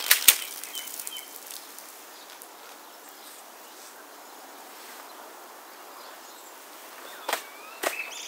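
Quiet outdoor backyard ambience with a steady faint hiss. There are two sharp clicks right at the start and two more near the end, and a few faint short chirps about a second in.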